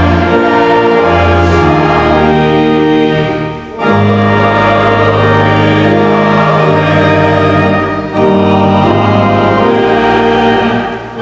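Church choir singing a hymn with organ accompaniment: full held chords in phrases of about four seconds, with a short break between each.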